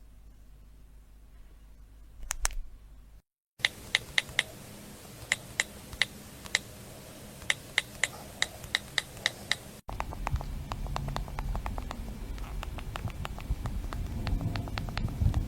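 Phone buttons being pressed: a long series of short, sharp clicks, irregularly spaced, in separate takes joined by brief silent cuts. In the last few seconds the presses come quicker and closer together over a louder background rumble.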